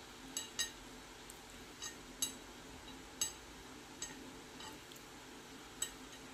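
Metal fork clinking: about eight light, sharp clinks at uneven intervals, each ringing briefly.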